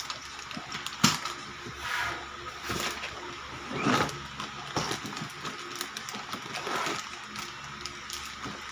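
Rustling and clicking as toy packaging and plastic Play-Doh set pieces are handled, with a sharp click about a second in and bursts of rustling a few times after.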